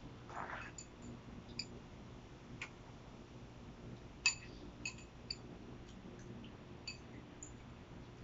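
Quiet, scattered light clinks and ticks of plates and dishes being handled on a glass-topped patio table during a meal, about a dozen at irregular intervals, over a low steady hum.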